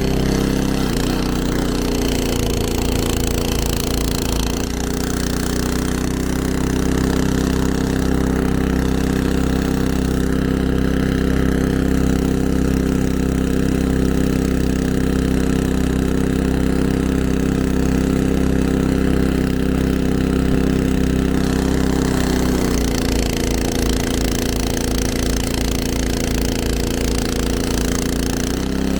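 Snowblower engine running steadily, heard from close up and a little muffled. Its note shifts a few times through the stretch.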